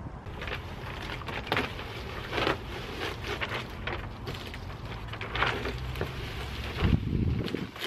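Self-adhesive foil bubble insulation crackling and rustling as its paper backing is peeled off and the sheet is handled, a string of separate crackles, over a steady low rumble of wind on the microphone with a louder gust near the end.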